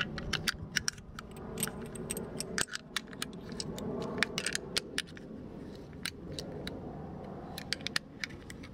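Brass rifle cartridges being pushed into a metal detachable box magazine: many sharp, irregular metallic clicks and clinks of cartridge on cartridge and magazine lips, with a low rumble underneath.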